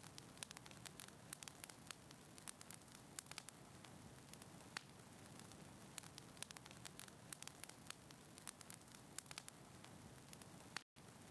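Wood fire crackling quietly in a fireplace: irregular small pops and snaps a few times a second over a soft steady hiss. The sound cuts out for an instant near the end.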